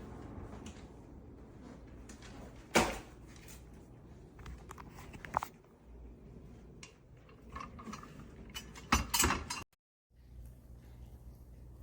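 Scattered handling knocks and clicks with a low room background: one loud knock about three seconds in, a few light clicks, and a quick cluster of knocks near the end before the sound drops out for a moment.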